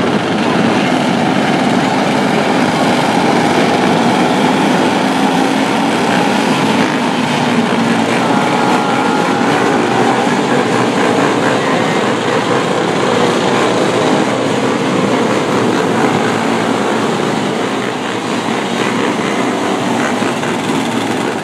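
Several 125cc mini sprint car engines and an ATV engine running at once at low speed, a loud steady mixed engine drone with no single car standing out.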